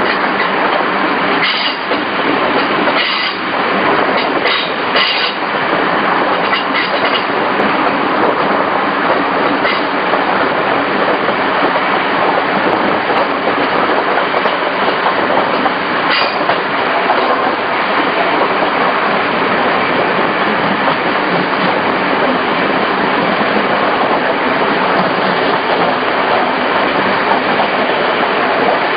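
Regional passenger train running along the line, heard from on board: a steady loud rumble and rail noise, with a few sharp clacks over rail joints in the first several seconds and once more about halfway through.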